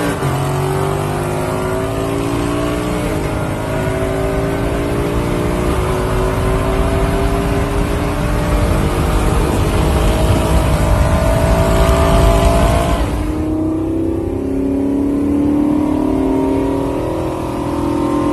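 V8 muscle-car engines at full throttle in a drag race, heard from inside one of the cars. The engine note climbs through several quick automatic upshifts. About 13 seconds in the throttle is lifted, and the engines drop to a lower, steadier note while coasting.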